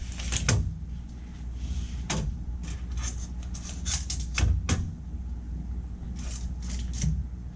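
Scattered knocks and clicks of tools and hands working against the sheet-metal coil cabinet while its surface is marked out, over a steady low hum. The sharpest knocks come about half a second in, around two seconds in, and twice near four and a half seconds.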